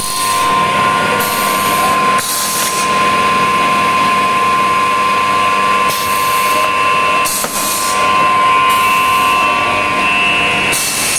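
Automated aluminium profile punching and cutting machine at work: a steady high-pitched motor whine, broken by about five short bursts of hiss.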